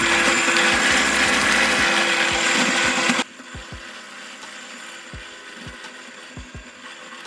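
An electric power tool running steadily while working wood, loud and high-pitched, stopping abruptly about three seconds in. After that only soft low thumps remain.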